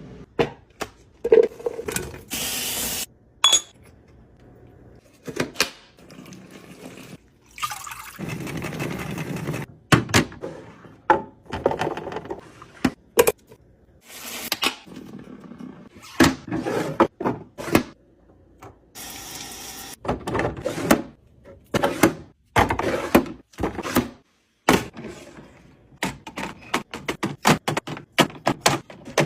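Food containers and packages being handled and set down, a series of sharp knocks and clicks, with a few stretches of a second or two of liquid pouring or running.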